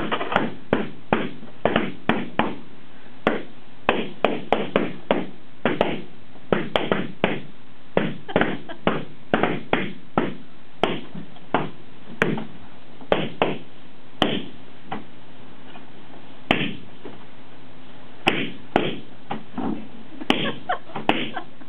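Balloons being popped one after another with a pin: a long, irregular string of sharp pops, often two or three a second, with a few short pauses between runs.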